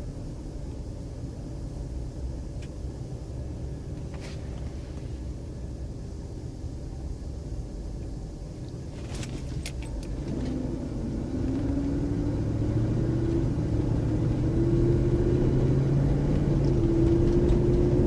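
Lincoln Aviator's 4.6-litre V8 engine running under way with a low rumble, then from about ten seconds in accelerating moderately, its pitch and loudness climbing slowly. A few light clicks come through in the middle. The owner suspects the noise comes from an exhaust leak or an EGR fault.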